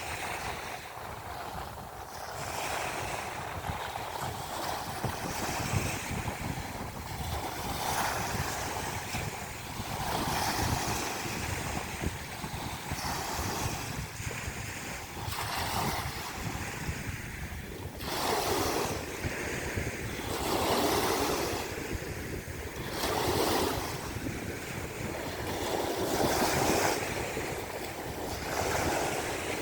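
Sea waves washing onto the shore, the surf hiss swelling and falling back every two to three seconds and growing louder in the second half. Wind buffets the microphone underneath with a low rumble.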